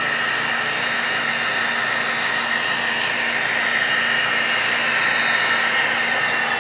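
Model freight train led by SD45-2 diesel locomotives running along the track: a steady whirring drone with a high steady whine.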